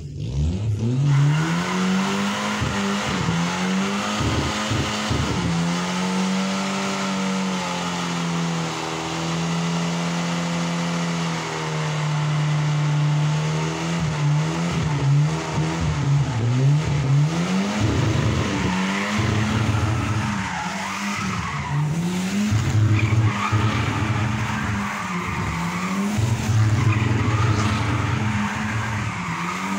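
Volvo estate car's engine revving hard while the driver spins the rear wheels in doughnuts, tyres squealing. The revs climb and hold high and steady for a few seconds, then from about twelve seconds in swing quickly up and down again and again.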